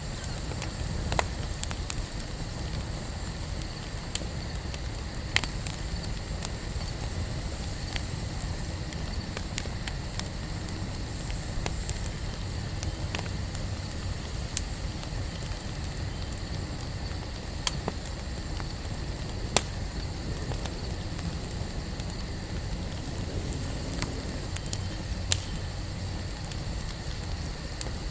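Wood campfire burning: a steady low rush of flames with sharp, irregular pops and crackles from the burning wood, about a dozen over the stretch.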